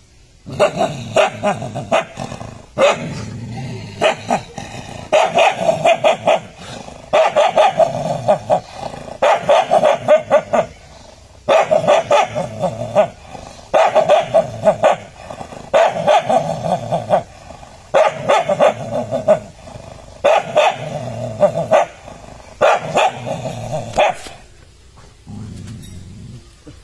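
Stray dog barking at its reflection in a mirror, in repeated bouts of several quick barks about every two seconds, stopping shortly before the end.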